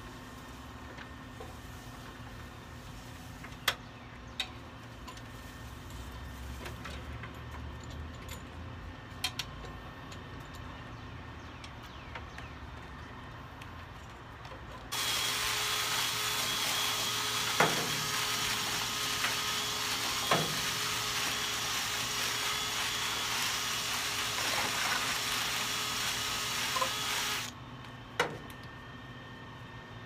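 Cordless drill spinning a rotary brush on flexible rods inside a dryer vent duct: it starts abruptly about halfway in, runs steadily for about twelve seconds, then stops suddenly. A few sharp knocks come before it and during it.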